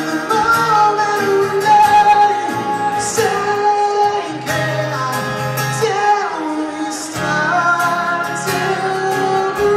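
Male vocalist singing long held notes that slide between pitches over a strummed acoustic guitar, played live.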